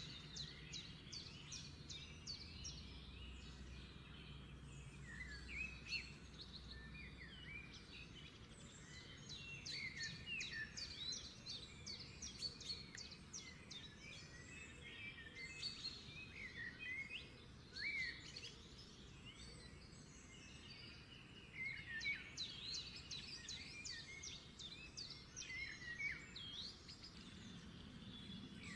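Many small birds chirping and twittering, a dense run of quick overlapping calls with louder bursts of chatter now and then.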